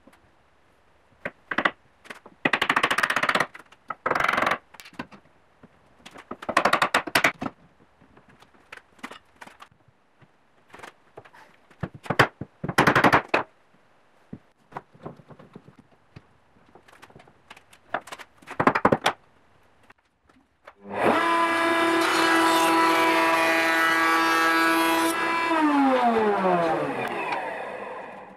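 Several short clusters of mallet blows on wooden frame joints. Then the loudest sound: a table-mounted router running at full speed, whose pitch falls steadily near the end as it winds down after being switched off.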